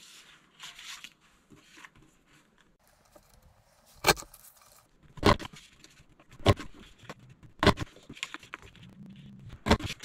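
Snow Capped Mountains border punch being pressed down through cardstock five times, each press a sharp clack, roughly a second apart, from about four seconds in. Before that, quiet paper handling as the sheet is positioned.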